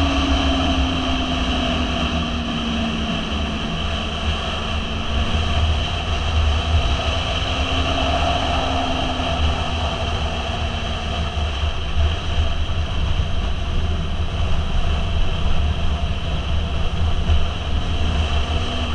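Motorcycle riding at road speed: heavy wind rumble on the microphone over a steady engine note that drifts slightly in pitch.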